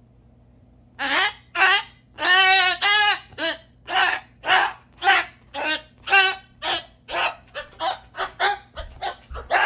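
Cockatoo giving a loud run of short honking squawks, starting about a second in and repeating roughly twice a second, with a longer drawn-out call early on and the calls coming faster near the end.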